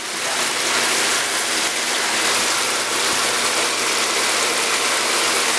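Water jets spraying steadily from an overhead spray bar onto a freshly hydro-dipped Honda CT70 frame in a rinse tub: a steady hiss with a faint low hum beneath, the rinse stage after the dip.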